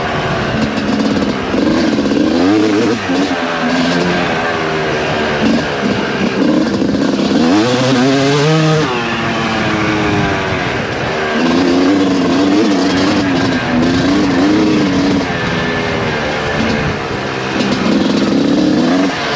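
Suzuki RM250 two-stroke motocross engine being ridden hard, its revs climbing and dropping again and again as the throttle is worked, with one long climb in pitch about eight seconds in.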